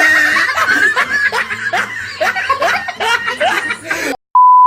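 Women's laughter, broken up and giggly, for about four seconds. It cuts out suddenly and a loud, steady, single-pitched electronic beep follows near the end.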